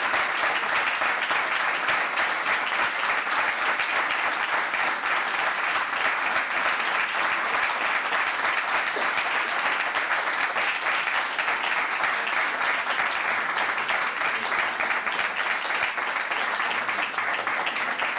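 Audience applauding steadily: sustained clapping from a seated crowd for award recipients coming up to the stage.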